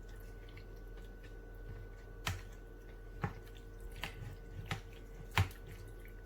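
Chicken pieces being stirred into a thick yogurt-and-spice marinade: a few scattered short wet clicks and squelches about a second apart, over a faint steady hum.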